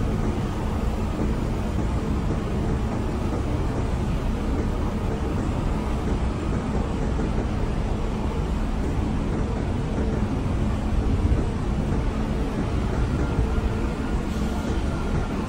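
Grove TM1500 truck crane's diesel engine running steadily while it works its hydraulic boom. A faint high whine comes in near the end.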